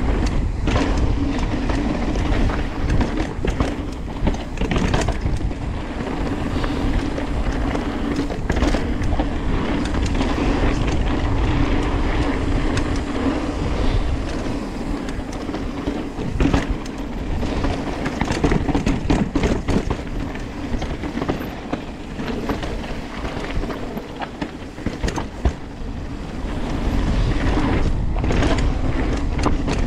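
Mountain bike rolling fast down a dry dirt and gravel trail: steady tyre roar with a constant clatter and rattle of chain and bike over bumps and stones.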